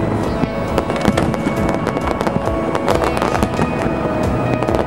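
Aerial fireworks going off in rapid, dense bangs and crackles, with music playing underneath.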